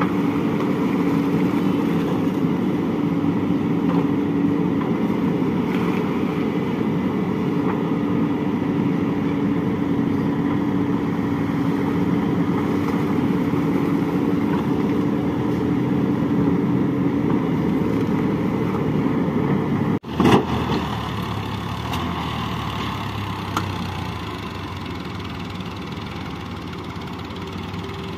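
Heavy diesel engine running steadily. About twenty seconds in there is a sudden break with a brief loud jolt, after which an engine idles a little more quietly.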